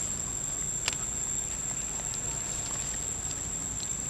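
Steady high-pitched insect drone over light clicks and rustling in dry leaf litter as a monkey moves close by, with one sharper click about a second in.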